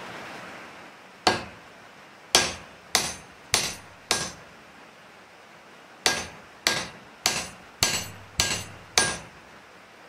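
Wooden hatchet handle rapped end-down on a steel rail anvil: eleven sharp knocks with a brief metallic ring, in a run of five and then, after a short pause, a run of six, a little under two a second. The blows drive the handle up into the hatchet head to seat it firmly.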